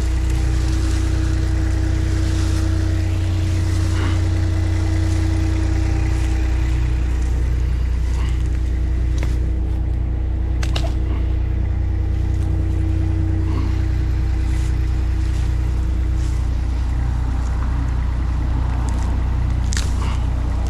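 Mini skid steer engine running steadily, with a few short knocks and scrapes over it.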